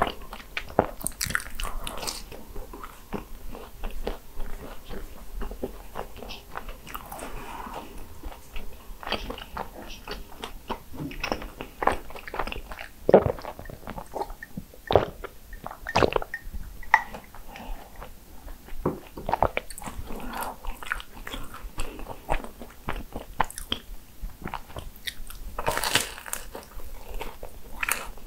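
Close-miked eating of crisp croffles (croissant waffles): crunchy bites and chewing, with irregular sharp crackles throughout.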